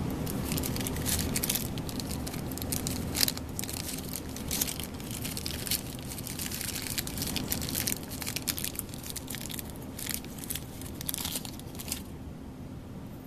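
Plastic packaging crinkling and crackling in irregular bursts as it is handled and opened to unwrap a new flexible shaft coupling. The crackling stops about twelve seconds in.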